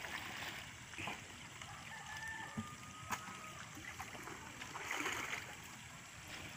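Faint trickling and splashing of muddy water as a plastic bucket is filled and emptied to bail out a drained fish pond, with a few light knocks.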